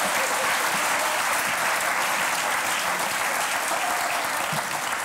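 Studio audience applauding, steady and sustained.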